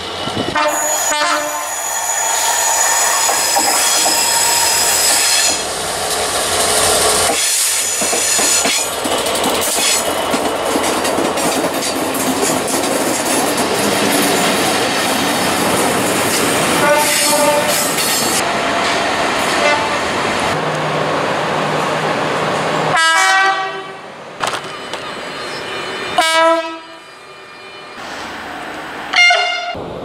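A locomotive hauling a rake of passenger coaches passes close by, sounding its horn several times as it approaches, followed by the long clatter of the coaches' wheels over the rail. Near the end come three short, sharp horn blasts from another locomotive, with quieter gaps between them.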